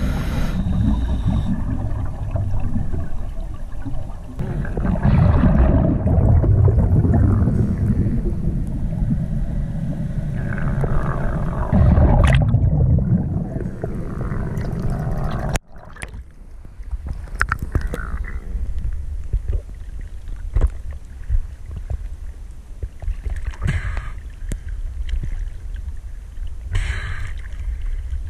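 Muffled underwater rumble and bubbling picked up by a diver's camera. It cuts off suddenly about halfway through, giving way to quieter water sloshing at the surface with scattered small knocks.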